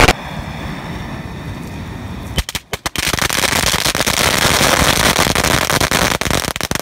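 A burning pile of consumer fireworks and firecrackers going off together. It is quieter for the first couple of seconds, then from about two and a half seconds in comes a dense, rapid crackle of many overlapping bangs.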